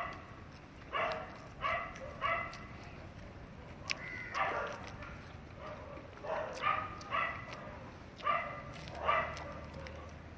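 Dogs barking: about eight short barks spread irregularly, several coming in pairs.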